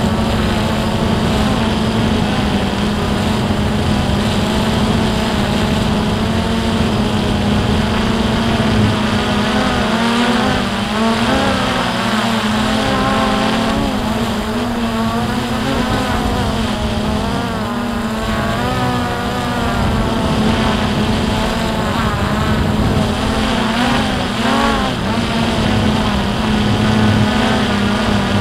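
A drone's electric motors and propellers whining steadily, recorded on board; the pitch wavers up and down through the middle as the throttle changes while it manoeuvres.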